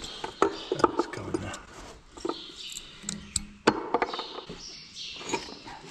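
Irregular sharp metal knocks and clinks of hand tools working at a plough headstock's pivot pin, with a few louder knocks among lighter taps.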